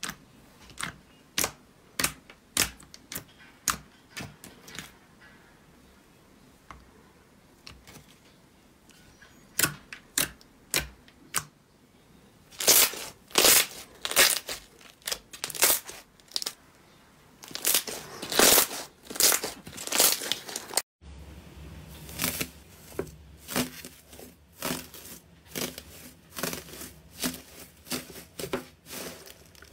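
Slime being poked and squeezed by fingers, giving quick sticky pops and clicks that come faster and louder in the middle. After a cut about two-thirds of the way in, a blue slime layered with gold foil is kneaded, its foil crinkling with small crackles over a low hum.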